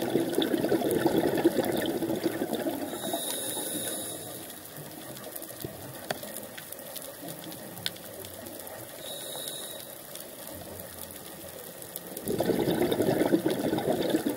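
Scuba diver's breathing heard underwater: a rushing burst of exhaled bubbles from the regulator that fades after about four seconds, a short hiss of an inhale a few seconds later, then a second burst of bubbles near the end. Faint scattered crackling clicks underlie it.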